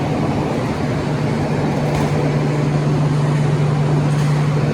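Steady running noise of a moving vehicle heard from inside, an even rumble with a constant low hum.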